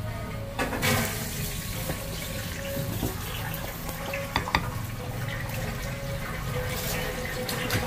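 A steady rushing hiss like a running kitchen tap, over a low hum, with a few light clicks of a plastic spatula against a ceramic plate about four and a half seconds in.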